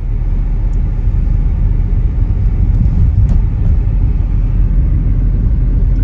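Loud, steady low rumble of a car on the move, road noise that swells up in the first second and then holds.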